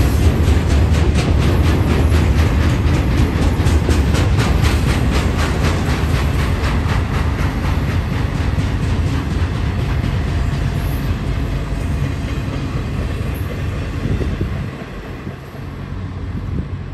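Intermodal freight train's container and trailer cars rolling past: a steady rumble with the rhythmic clickety-clack of wheels on the rail, about four clicks a second at first. The clicking fades and the rumble eases near the end as the train's tail draws close.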